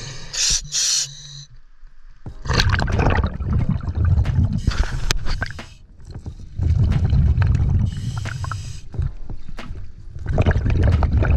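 Scuba diver breathing through a regulator underwater: exhaled bubbles rumble in long bursts about every four seconds, with quieter inhale gaps between. A couple of short splashes open it as the camera goes under the surface.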